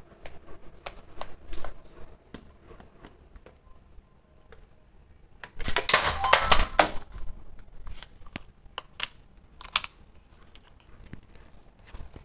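Steel spatula tapping and scraping against a frying pan as fish are moved around in curry gravy: a scatter of small clicks, with a louder stretch of stirring about halfway through.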